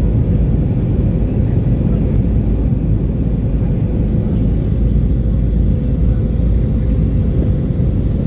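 Steady cabin noise of a Boeing 737-800 during descent, heard from a window seat beside its CFM56-7B engine: a deep, even roar of engine and airflow with a faint steady hum above it.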